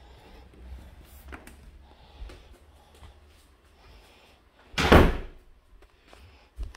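A house door being shut, with one loud bang about five seconds in and a few faint clicks before it.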